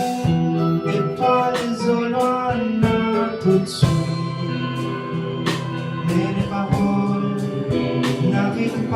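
A live progressive rock/jazz-fusion band playing an instrumental passage: a drum kit keeps time under sustained keyboard and electric guitar parts with a melodic lead line, and a cymbal crash rings out about four seconds in.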